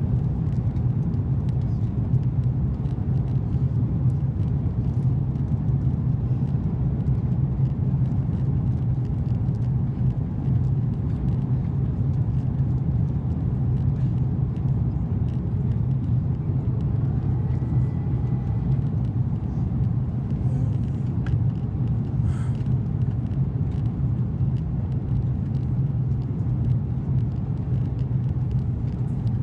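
Steady low rumble of an Airbus A330-200 cabin in flight, from the engines and airflow, heard from a window seat inside the cabin. A faint brief tone rises out of it about halfway through.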